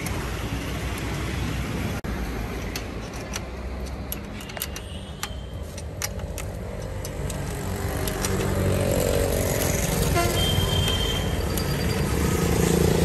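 Road traffic rumbling, with vehicle horns tooting in the second half, and a run of light metallic clicks a few seconds in as a nut is fitted to a motorcycle exhaust bracket.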